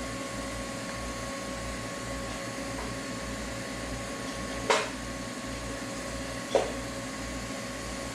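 Steady hum of running machinery, with a constant whine over a low rumble, broken by two short, sharp sounds about five and six and a half seconds in.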